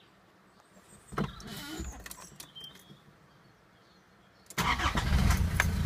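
A few small clicks and rattles about a second in, then after a quiet pause the Nissan TD27 ETi 2.7-litre four-cylinder turbo diesel cranks briefly and starts near the end, running at idle with a low, even rhythm.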